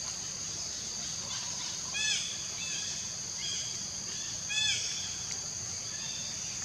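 Steady high-pitched insect drone, with a short repeated animal call over it, loudest about two seconds in and again about four and a half seconds in, and fainter calls in between.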